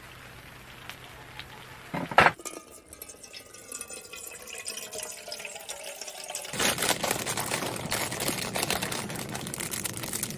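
A sharp knock about two seconds in, then water pouring from the spigot of a Stanley water jug into an aluminium pot, with a ringing pitch that shifts as the pot fills. From about six seconds in, a louder, even rushing hiss.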